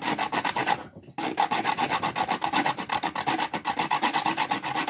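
A stick of fatwood rasped quickly back and forth over the fine teeth of a Betty Crocker handheld metal grater, with a brief pause about a second in. It is grating the resin-rich pine into fine, highly flammable dust for tinder.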